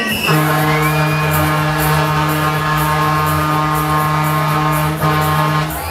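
Loud dance music from a funfair ride's sound system: one long held note over a steady low beat, broken briefly near the end.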